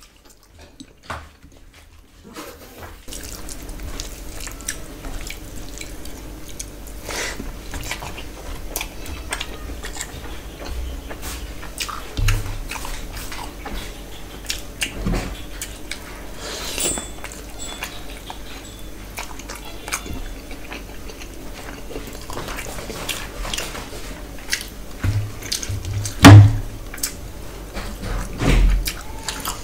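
Close-miked mukbang eating sounds: wet smacking, chewing and squishing as rice and curry are mixed and eaten by hand, many small clicks over a steady low hum that comes in about three seconds in. A few louder knocks stand out, the loudest near the end.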